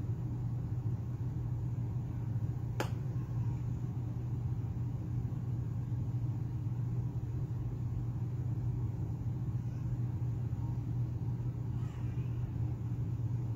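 Steady low hum with a single sharp click about three seconds in.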